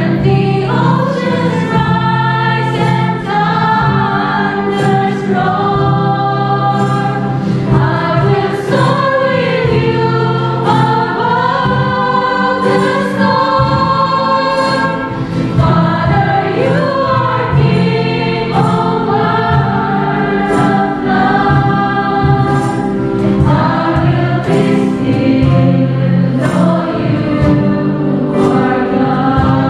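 A group of voices singing a Christian worship song in harmony, backed by a band with a steady beat.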